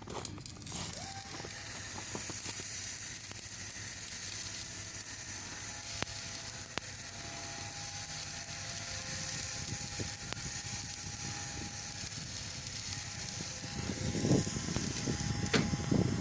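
Electric arc welding on a steel truck trailer: the arc gives a steady, even crackling sizzle. It gets louder and rougher with irregular low noises in the last two seconds.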